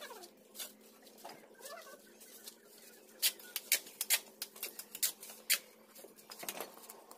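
Steel mason's trowel tapping and scraping on fired red bricks and mortar as bricks are laid, a string of sharp clicks and taps, loudest and most frequent from about three to five and a half seconds in.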